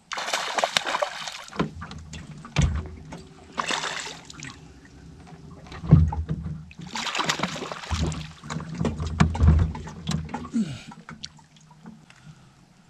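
A hooked spotted bass splashing at the surface beside an aluminium jon boat as it is fought in and landed, in several bursts, with deep thumps and knocks on the boat's hull.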